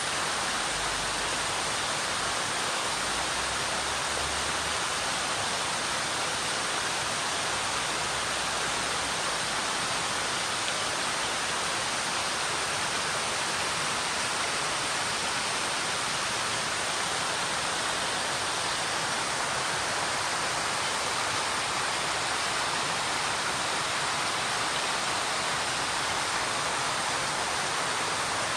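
Mountain stream rushing and splashing over rocks in small cascades: a steady, even rush of water.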